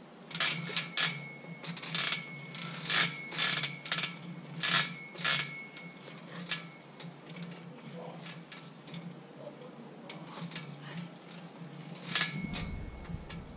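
Metal monkey-bar frame clanking and ringing as a child swings hand over hand along the bars: a quick run of knocks about two a second for several seconds, then softer ones, and one more loud clank near the end.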